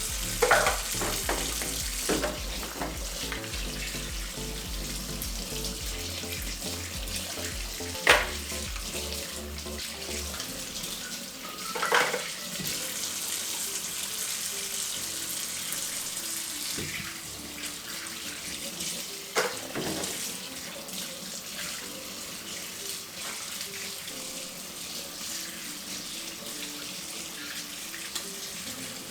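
Kitchen tap running into a sink while bottles are rinsed under it, with a handful of sharp knocks as the bottles are handled.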